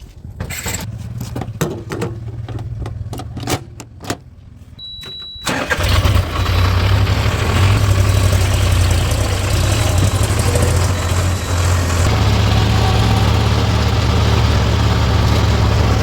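Heavy diesel engine running, at first quieter with a series of sharp clicks and knocks. About five and a half seconds in it turns suddenly much louder and then runs steadily.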